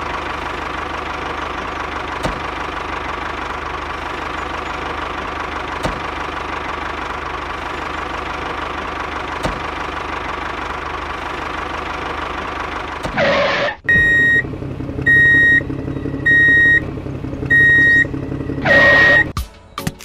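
Tractor engine running steadily. About thirteen seconds in a whoosh cuts in, then five evenly spaced high beeps sound over a lower engine hum, and a second whoosh comes near the end.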